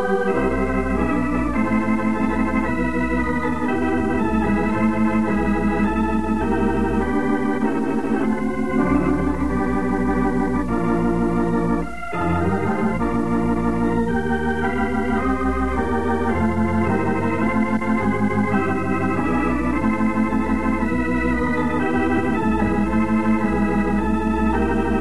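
Closing theme music played on an organ, with sustained chords that waver rapidly, and a short break in the playing about halfway through.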